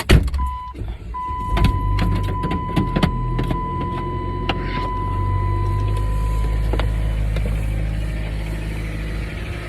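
A car's engine starting with a knock, then running at a steady idle. Over it a car's steady electronic warning chime sounds for about six seconds, with a few small clicks from inside the car.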